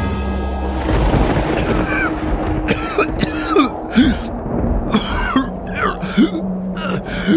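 Sombre film score with long held low notes over a deep rumble. From about a second and a half in come repeated short sobbing, gasping cries of people weeping.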